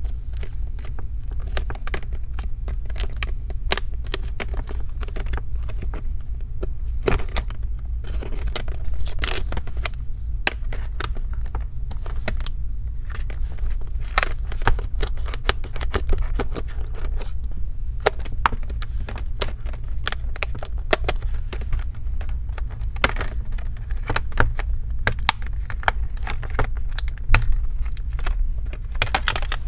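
Screen bezel of a ThinkPad T14s Gen 2 laptop being pried and peeled off the display: its double-sided adhesive tape tearing and crackling, with irregular clicks and scrapes of the prying tool and the bezel edge. A steady low hum runs underneath.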